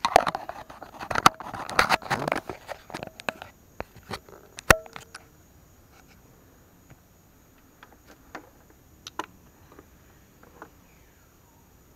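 Handling noise from a small action camera being gripped and fitted to its tripod mount. A dense run of rubs, knocks and clicks on the camera body comes first, then scattered light clicks for the rest.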